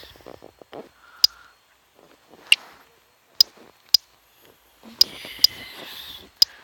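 A series of about seven sharp, separate clicks or taps at uneven intervals, with faint whispering between them.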